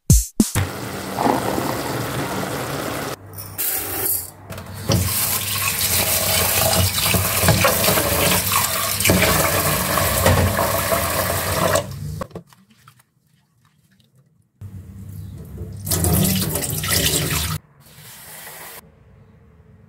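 Water running from a kitchen tap into a sink, in long spells with short breaks, stopping for about two seconds past the middle and then running again for a few seconds.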